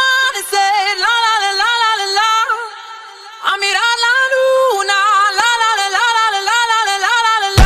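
High unaccompanied singing voice, one long ornamented melodic line with sliding, wavering notes and a short pause partway through. Just before the end a full backing track with heavy bass comes in.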